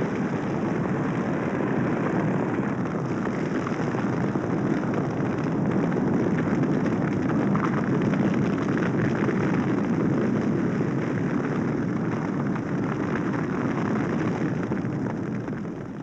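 Bushfire burning through eucalypt bush: a steady roar of flames with crackling, fading out near the end.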